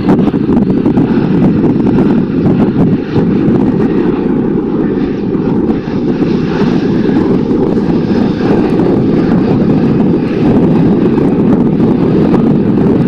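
Airbus A320 airliner on final approach with gear down, its jet engines making a steady, loud rushing drone as it passes.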